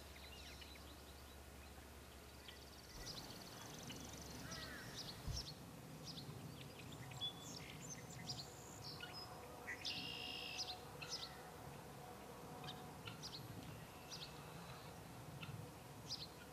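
Faint outdoor ambience with small birds chirping, with short high calls scattered throughout and a louder twittering call about ten seconds in. A low steady hum runs under it for the first three seconds, then stops.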